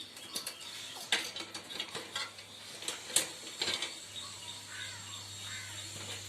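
Metal parts of a bicycle wheel and chain being handled and refitted: a run of sharp metallic clinks and clicks, the loudest about three seconds in, then a steady low hum.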